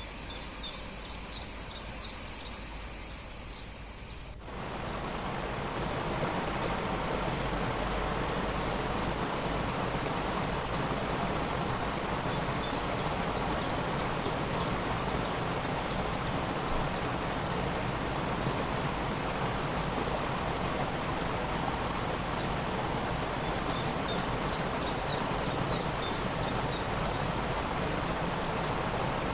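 Waterfall rushing steadily, with a small bird singing three short phrases of quick, high repeated notes. About four seconds in, the rushing changes suddenly and becomes louder and fuller.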